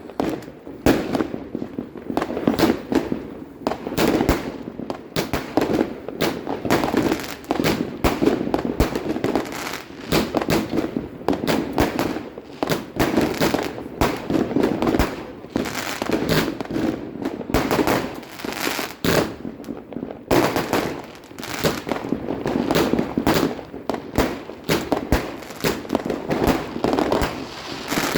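Fireworks and firecrackers going off non-stop: a dense run of bangs and crackling, many overlapping, with hardly a pause.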